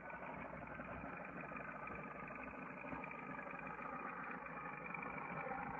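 Underwater ambience picked up by a GoPro in its housing on the seabed: a faint, steady muffled rumble with a fine crackle throughout.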